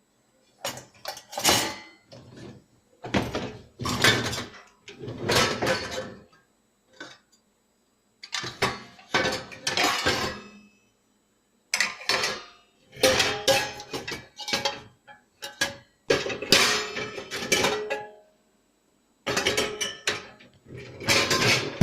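Dishes and utensils clattering as they are handled and taken out of the dishwasher racks after a wash, in about a dozen separate bursts of clanking with short silent gaps between.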